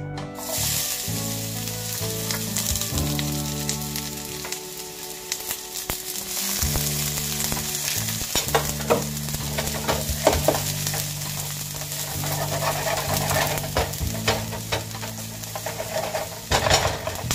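Chopped garlic dropped into hot olive oil, sizzling. The sizzle starts about half a second in, and a silicone spatula stirs it with short scraping strokes against the pan.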